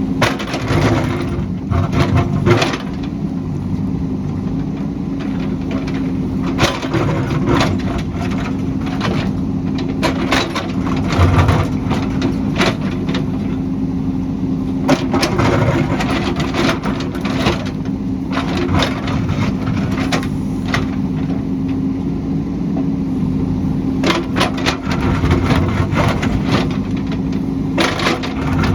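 JCB backhoe loader's diesel engine running steadily under load, with repeated sharp cracks and crunches as the bucket digs and breaks up earth and rock on the hillside.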